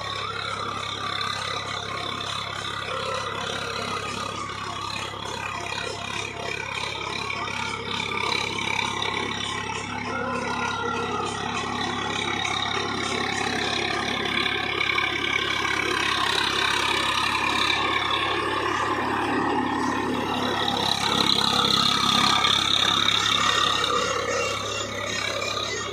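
Tractor engine running under load while its PTO-driven Shaktiman rotary tiller chops a standing sunhemp green-manure crop into the soil, with the steady engine hum under the churning of the rotor blades through the stalks. It grows louder as the tractor comes closer and is loudest a few seconds before the end.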